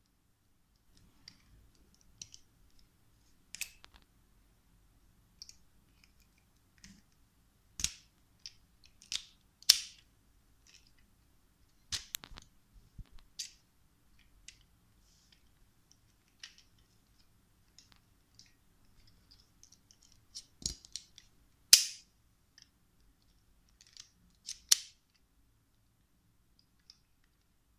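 Miniature metal toy pistol being handled, its parts worked by hand: sharp metallic clicks and snaps at irregular intervals, the loudest about ten seconds and twenty-two seconds in.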